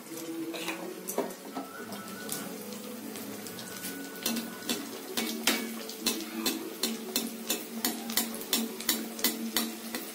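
Rice batter pitha frying in hot oil in a metal kadai, with a steady sizzle. A perforated metal ladle taps and scrapes against the side of the pan, sparse at first and then about three taps a second from about four seconds in.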